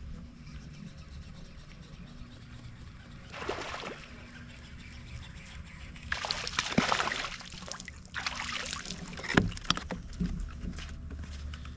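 Water sloshing against the hull of a bass boat over a steady low rumble, with three short bursts of splashing and a few sharp clicks.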